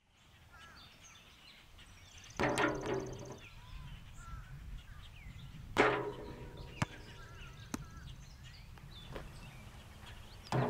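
Birds chirping and warbling, broken by a few sudden knocks that ring briefly: one a little over two seconds in, the loudest about six seconds in, and another near the end.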